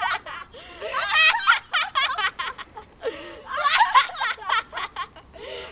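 High-pitched laughter in quick, repeated pulses, coming in two bouts.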